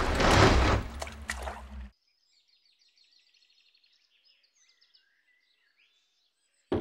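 Loud rushing noise with a low rumble that cuts off abruptly about two seconds in, giving way to faint high bird chirps in near quiet; a sharp knock comes at the very end.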